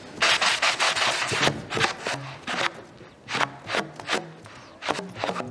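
Four saxophones playing together in rhythmic, breathy bursts of air noise, with a few faint low notes underneath.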